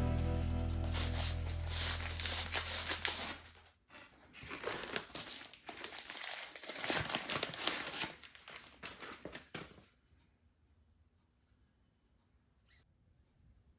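Crinkling and tearing of packaging being handled, for several seconds in the middle, after a held low tone dies away; then near quiet with one faint click near the end.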